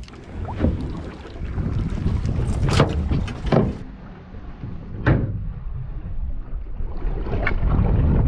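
Steady low rumble of a fishing boat at sea with wind noise on the microphone, broken by several sharp knocks, the sharpest about five seconds in.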